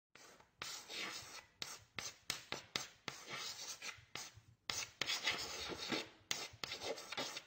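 Chalk writing on a blackboard: a quick run of scratchy strokes of uneven length, each starting and stopping abruptly, with short gaps between.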